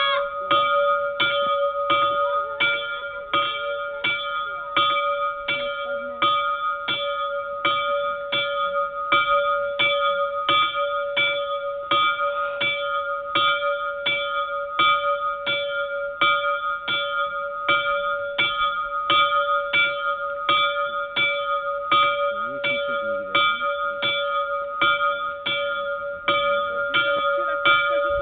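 Small bell in a wooden village bell post swinging and striking steadily, about three strokes every two seconds, its clear tone ringing on between strokes: the noon bell being rung.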